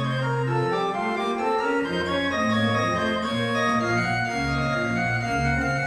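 Gottfried Silbermann baroque pipe organ playing a many-voiced piece, several lines of notes moving over low held pedal notes.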